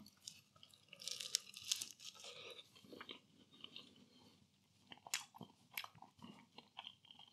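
A bite into a flaky puff-pastry Greggs cheese and onion bake, the pastry crackling about a second in, followed by chewing with scattered soft crunches.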